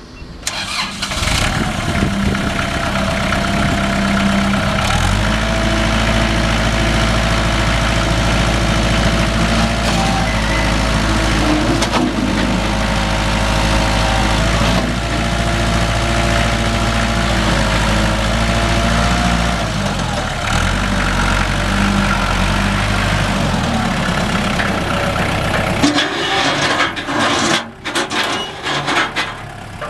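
Kubota L4240D tractor's diesel engine starting and running. Its note becomes deeper and stronger about five seconds in, then eases back about two-thirds of the way through, with some uneven clattering and a brief dip in level near the end.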